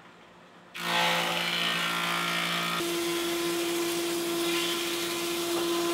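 Powermatic 180 thickness planer cutting oak, starting up loudly about a second in. It runs first on its old straight-knife cutterhead, a choppier sound. About three seconds in it changes to the LUX CUT III carbide-insert cutterhead, a steadier, more continuous hum around one clear tone.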